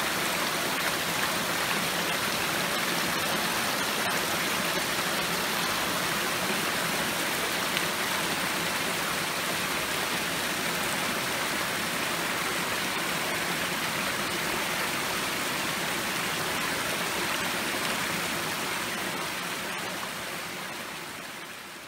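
Setrock Creek Falls cascading down a rock face into a shallow rocky creek: a steady rushing hiss of falling and flowing water, fading out over the last few seconds.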